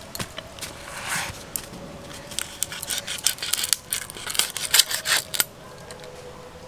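Shells of large freshwater prawns being cut and broken open: a scrape about a second in, then a quick run of sharp cracks and clicks that dies away shortly before the end.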